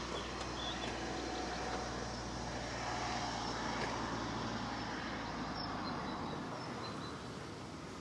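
Road traffic: a motor vehicle passing on the road, its low engine hum over tyre noise fading away about six seconds in.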